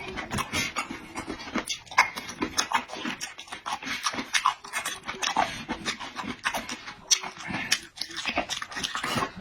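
Close-miked eating: wet chewing, lip smacks and slurping, a rapid run of sharp mouth clicks with short squeaky slurps mixed in.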